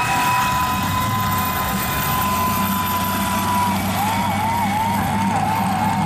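Electronic siren: a steady tone for about three and a half seconds, then switching to fast, repeated rising sweeps, over a low steady engine hum.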